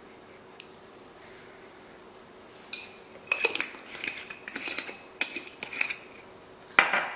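Glass spice jars clicking and clinking as they are handled and set down on a stone countertop. The sounds are a sharp click, then a busy run of clinks lasting a few seconds, then a louder knock near the end.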